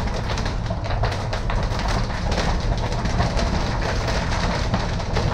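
Strong storm wind buffeting the microphone in a steady low rumble, with rain and hail striking in many small sharp ticks.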